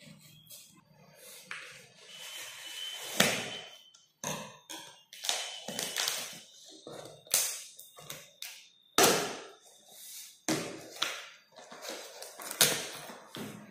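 Scissor blade slitting the packing tape along a cardboard carton's seams: a run of irregular scraping strokes on the tape and cardboard, with taps and knocks on the box.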